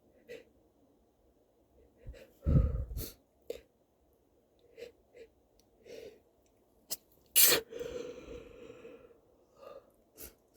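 A person sneezing. About two and a half seconds in there is a loud, muffled burst with a deep thump. About seven seconds in comes a loud, sharp sneeze that trails off in a voiced exhale. Short sniffs and breaths fall between them.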